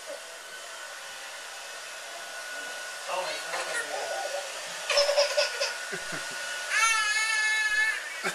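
A toddler giggling and squealing, with a long, high-pitched squeal of laughter near the end, over a steady background hiss.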